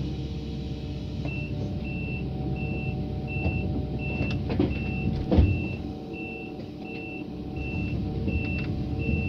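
An excavator's diesel engine running steadily while its travel alarm beeps, a single high beep repeating about one and a half times a second as it starts moving toward the trailer ramps. A heavy metallic thump about five seconds in is the loudest sound.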